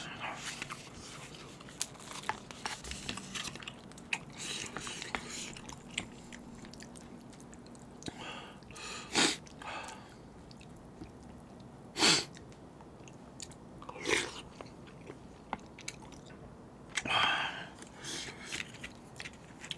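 A person chewing and biting jjamppong (Korean spicy seafood noodles) in soft, irregular mouthfuls, with a few short louder eating sounds about 9, 12, 14 and 17 seconds in.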